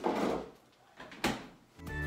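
Two short household thuds about a second apart, the first right at the start and fading over half a second, then background music with a steady beat begins near the end.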